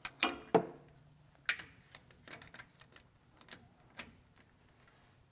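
Sharp metallic clicks and ticks of hand tools, a wrench and a crow's-foot, being fitted onto the bolts of a differential cover. Three loud clicks come in quick succession at the start, lighter ticks follow, and there is one more sharp click about four seconds in.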